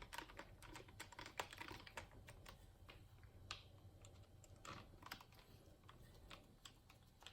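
Faint, irregular light clicks and taps of small screws and a hand-held hex wrench against a plastic RC truck chassis as the skid plate screws are driven in by hand.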